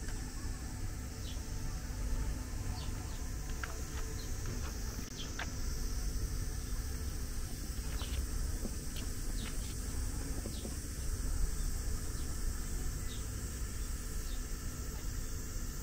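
Outdoor park ambience: scattered short bird chirps over a steady high insect drone, with a constant low rumble from wind on the microphone.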